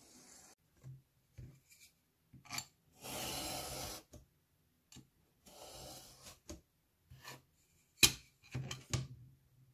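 Snap-off utility knife drawn along a metal ruler, slicing through grey cardboard in one rasping stroke of about a second, with a fainter scraping stroke a couple of seconds later. Near the end come a sharp click and a few smaller knocks as the knife and ruler are handled on the cutting mat.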